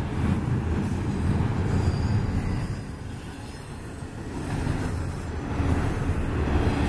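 Double-stack intermodal well cars rolling past: a steady low rumble of steel wheels on rail that swells and eases as the trucks go by. A faint high wheel squeal joins for a couple of seconds, starting about two seconds in.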